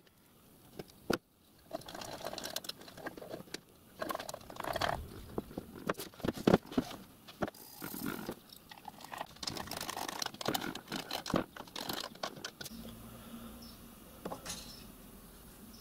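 Small steel bolts, washers and brackets clinking, clicking and scraping as they are picked up and fitted by hand against a metal plate, in irregular clicks and rattles with one sharper knock midway.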